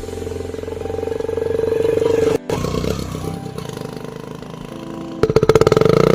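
Homemade bottle toy made to sound like a Royal Enfield Bullet motorcycle, giving a fast buzzing putter as it is run along. It cuts out for an instant about two and a half seconds in and comes back louder near the end.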